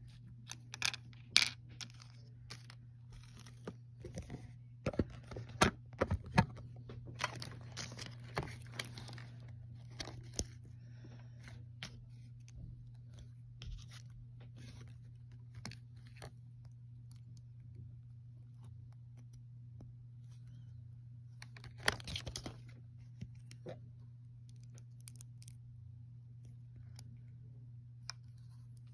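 Small plastic Lego minifigure parts being handled and pressed together: scattered light clicks and rustling, busiest in the first ten seconds and again briefly about 22 seconds in, over a steady low hum.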